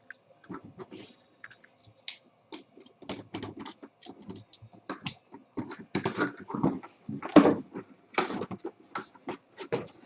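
Trading card packaging and cards being handled: an irregular run of rustling, crinkling and quick clicks, busiest about two thirds of the way through.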